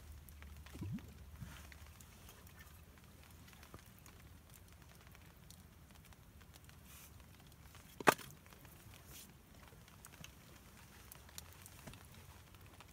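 Small campfire crackling faintly, with scattered soft pops and one sharp, loud crack about eight seconds in.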